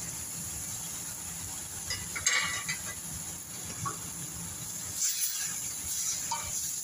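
Diced onion, tomato and green bell pepper frying in a stainless steel pan with a steady sizzle, while a wooden spoon scrapes and stirs, loudest about two seconds in and again from about five seconds.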